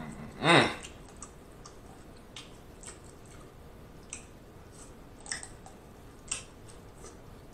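Close-up eating sounds: a short, loud slurp about half a second in as king crab meat is sucked from the leg. It is followed by scattered small wet clicks and crackles of chewing and of the crab shell being picked apart.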